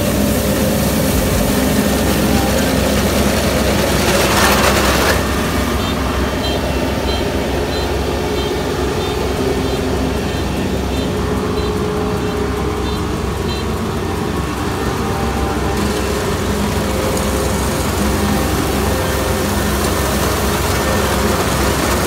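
Kubota Dynamax Rebel ER470 rice combine harvester running steadily up close as it moves through the field, its diesel engine giving a constant hum. A brief louder rush of noise comes about four seconds in.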